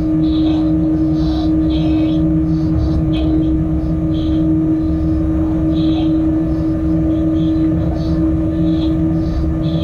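Electric freight locomotive running along the track, heard from inside its cab: a steady hum with a strong constant tone over the low rumble of the wheels on the rails, with short higher-pitched sounds recurring about once a second.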